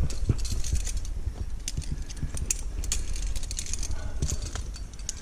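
Metal climbing gear, carabiners and quickdraws on the harness, clinking and jangling irregularly as the climber moves on the route, over a steady low rumble on the helmet-camera microphone.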